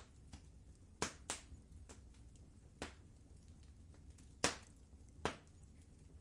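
Wood fire crackling in a fireplace: five sharp pops stand out over a faint low rumble of the burning, the loudest about four and a half seconds in.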